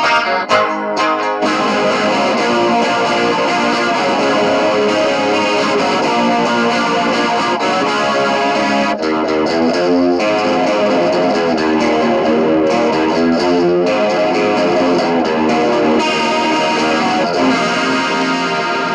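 Distorted electric guitar with a chorus shimmer: a Squier Sonic Mustang HH played through a Boss DS-2 distortion and an Electro-Harmonix Small Clone chorus. Short, choppy chords in the first second or so, then steady sustained chord playing.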